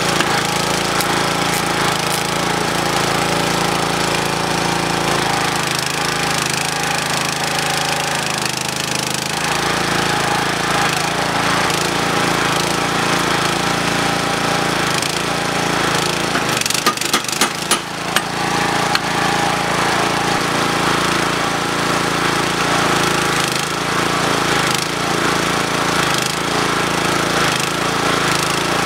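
The 7 horsepower petrol engine driving a homemade power hammer runs steadily throughout. A quick run of hammer blows comes about halfway through.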